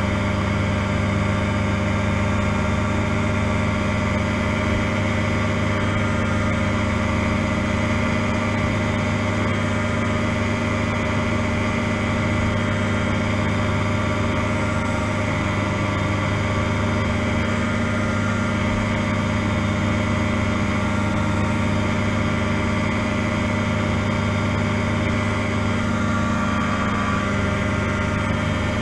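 Two-stroke engine of a Challenger ultralight running steadily at an even pitch, heard from the open cockpit.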